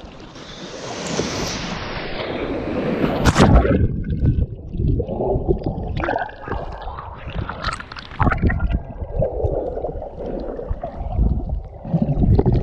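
Surf sloshing and splashing against a waterproof action camera at the waterline, with a rush of wave wash swelling over the first few seconds, then irregular splashes and knocks, and muffled gurgling as the camera goes under near the end.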